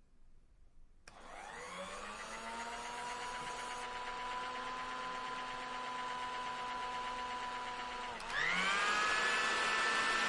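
Hair dryer switched on about a second in, its motor spinning up into a steady whine over rushing air. Just after eight seconds it dips briefly, then spins up again to a louder, higher-pitched whine, as when switched to a higher speed setting.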